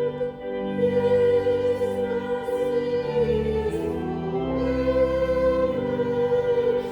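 A hymn sung to organ accompaniment, with held chords that change about once a second.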